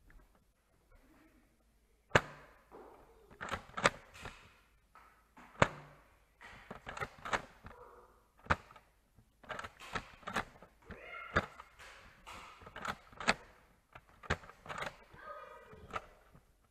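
Nerf dart blasters being primed and fired: a string of sharp, irregular clacks and thunks, the loudest about two seconds and five and a half seconds in.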